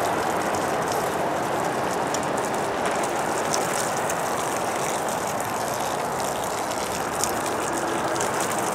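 Garden hose running a steady stream of water into a compost pile of grass clippings and greens, wetting it so the pile will heat up.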